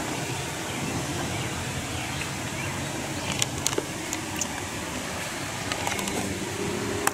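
Steady hissing outdoor background noise with no clear single source, broken by a few sharp clicks about three and a half seconds in as the camera is moved and panned.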